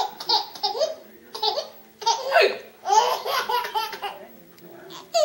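A young child laughing in repeated short, high-pitched bursts of giggles, breaking off and starting again several times.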